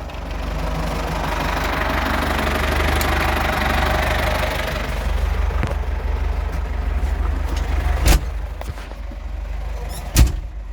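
Ford 5610 tractor's four-cylinder diesel engine running at a steady idle, with a louder spell of noise in the first half. Two sharp knocks come near the end, about two seconds apart.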